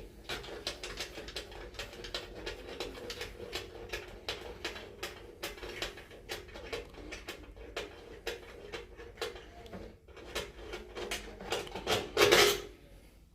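Phillips screwdriver backing out the screws of a shower valve trim plate: a rapid run of small metallic clicks and scrapes, with one louder clank near the end.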